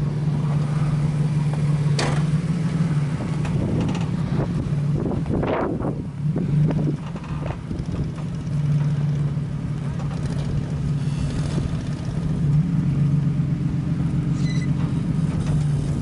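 A vehicle engine running at a steady idle, with a couple of short sharp knocks in the first half and the engine a little louder over the last few seconds.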